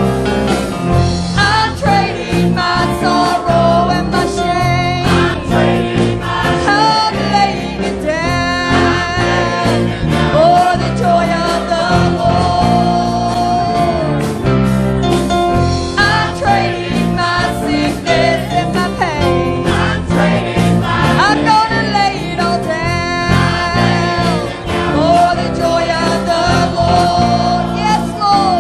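Gospel worship song played by a church band, with voices singing a wavering melody over bass and a steady beat.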